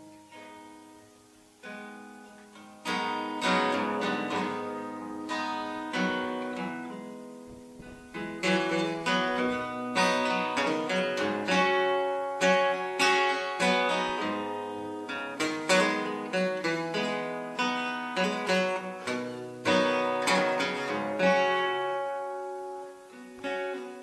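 Solo acoustic guitar, picked notes ringing over one another: sparse at first, fuller from about three seconds in and busiest from about eight seconds, then thinning out near the end.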